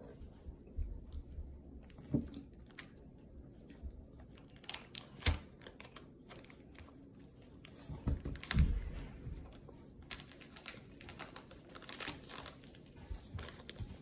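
Snack wrappers being handled: scattered light clicks, taps and crinkles, with a few sharper knocks.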